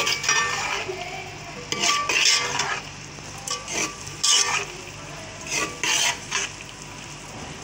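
Metal ladle scraping and clanking against the side of a steel pot while stirring chopped cabbage, capsicum and carrot. It comes in short strokes, mostly in pairs, about every couple of seconds.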